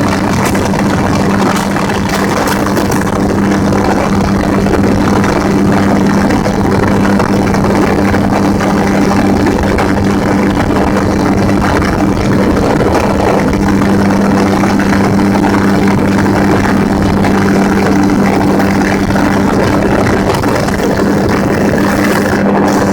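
Gyrocopter in flight: its engine and pusher propeller drone at a steady, unchanging pitch under heavy rushing wind noise.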